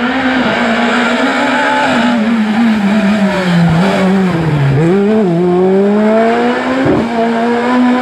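Skoda Fabia S2000 rally car's naturally aspirated 2.0-litre four-cylinder engine at high revs. It dips in pitch, lowest about four to five seconds in, as the car slows through the bend, then climbs steadily as it accelerates away, with a few short sharp cracks.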